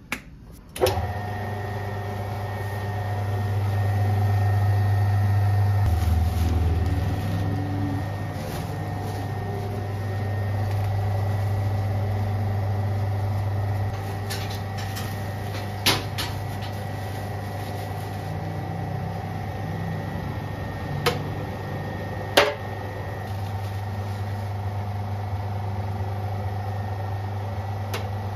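Electric motor of a bakery dough mixer starting with a sharp click just under a second in, then running with a steady low hum. A few sharp knocks come in the second half.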